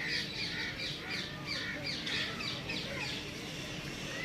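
Birds calling in a quick series of short, harsh, falling calls, about three a second, thinning out near the end, over a faint steady hum.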